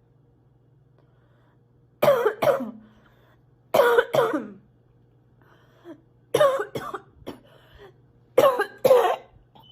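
A sick girl coughing: four bouts of two coughs each, a second or two apart, over a faint steady low hum.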